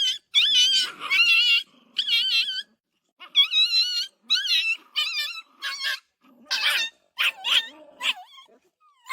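Puppy whining: a string of about ten short, high, wavering whines with brief gaps between them.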